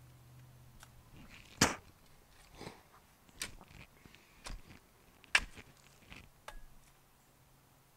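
Narrow garden spade chopping down into soil: about half a dozen sharp strikes, the loudest about a second and a half in and another strong one near five and a half seconds.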